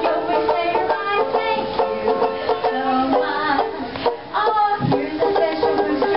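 A small stringed instrument plucked and strummed in a quick, busy country-style tune.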